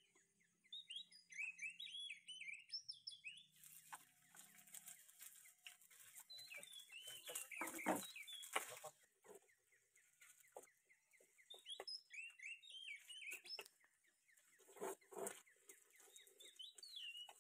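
Chickens clucking in several short runs. Scattered knocks and a hiss in the middle.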